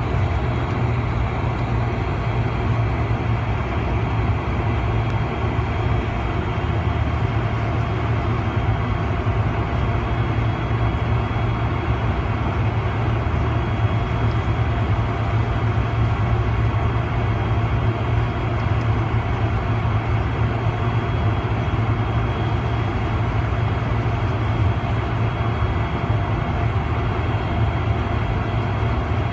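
Cabin noise of a Boeing 747-400 taxiing, heard from a window seat over the wing: the Rolls-Royce RB211 engines at low taxi power make a steady low rumble and rush, with a faint steady high whine.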